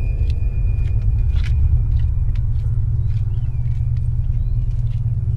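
A loud, steady low rumble with scattered footsteps on a concrete walkway.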